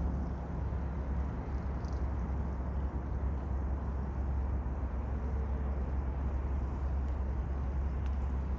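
Steady low rumble of outdoor background noise, unbroken throughout.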